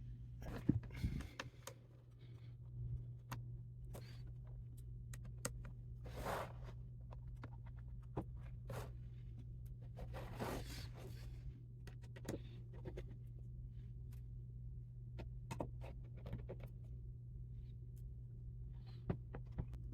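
Scattered light clicks, taps and short scrapes of hands working on a laptop's display panel and bezel, over a steady low hum.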